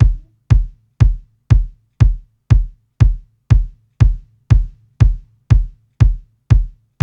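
Kick drum sample layered from a sub kick and an acoustic kick body, looping steadily at about two hits a second. Each hit is a deep thud with a short click on top and dies away quickly, its tail cut short by a volume fade.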